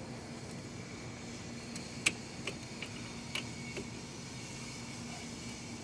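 A few light metallic clicks and taps of hand tools and brake parts being handled during a caliper job, the sharpest about two seconds in, over a steady low hum.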